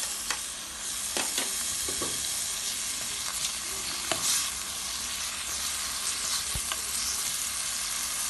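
Chopped vegetables, tomato just added, sizzling in hot oil in a pot while a spoon stirs them, with the spoon clicking against the pot now and then.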